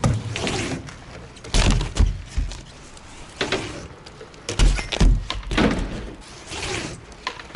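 BMX bike on a concrete skatepark ramp: two heavy thuds with clatter as the tyres and frame hit the ground, about three seconds apart, between lighter tyre scrapes and knocks.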